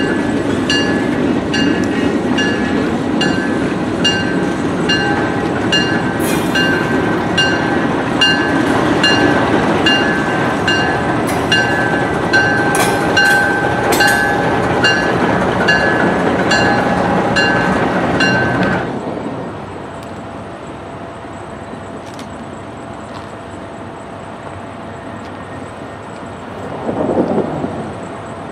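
Railroad grade-crossing bell ringing about twice a second over the loud rumble of a train moving across the crossing. Bell and rumble cut off suddenly about two-thirds of the way through, leaving a quieter steady background that swells briefly near the end.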